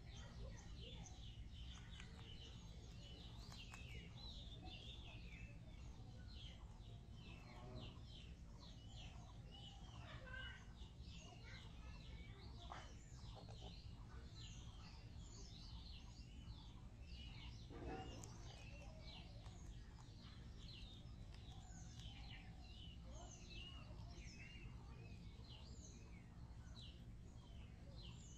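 Faint birdsong: many small birds chirping in short, quick notes throughout, over a low, steady background rumble.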